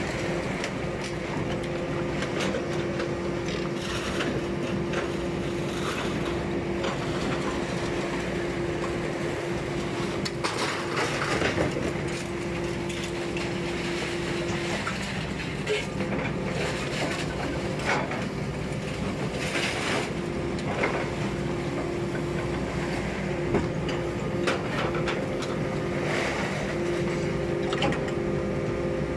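Hydraulic scrap metal baler running: a steady machine hum from its hydraulic power unit, with scattered metallic knocks. The hum's steady tone drops out about halfway through and comes back a few seconds later.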